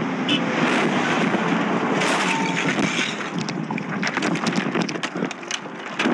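Wind and road noise from a riding bicycle, then a crash as the bike goes down on the tarmac: a sudden burst of noise, followed by a run of clattering and scraping clicks near the end.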